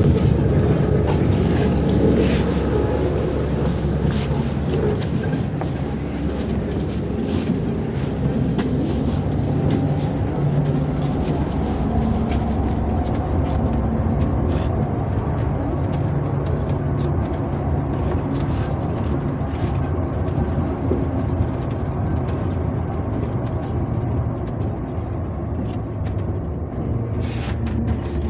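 Inside a MAZ 103.562 bus on the move: steady engine drone and road noise, with scattered clicks and rattles from the body and fittings.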